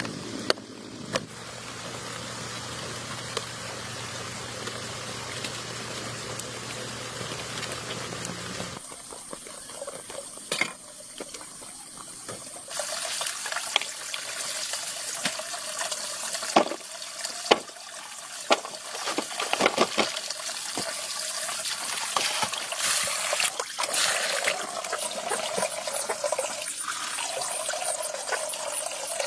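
Water running and trickling, with scattered clicks and knocks.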